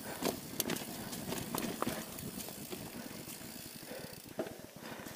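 Mountain bike rolling over a dirt forest trail: tyre noise on the dirt with irregular clicks and knocks from the bike rattling over bumps, thickest in the first two seconds.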